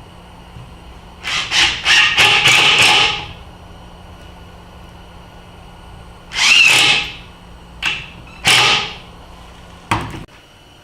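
Power drill driving drywall screws into wood in several short runs, the longest about two seconds, over a steady low hum.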